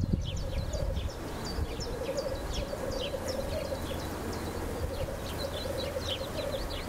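Small songbirds chirping over and over in short, quick calls, over a steady wavering hum and a low rumble.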